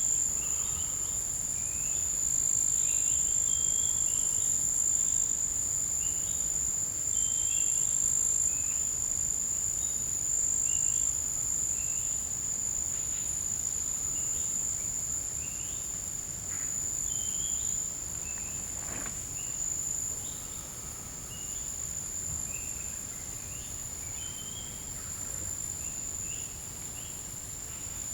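Forest insects holding one steady, piercing high-pitched drone, with many short high chirping notes scattered through it.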